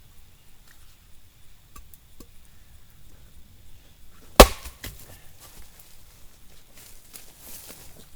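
A single sharp chopping strike into a piece of firewood about four and a half seconds in, with a few faint knocks and rustles of wood being handled around it.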